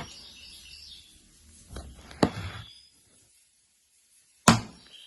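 A plastic food tub being opened by hand: a sharp click about two seconds in, then after a short pause a loud, sharp snap near the end as the lid comes free.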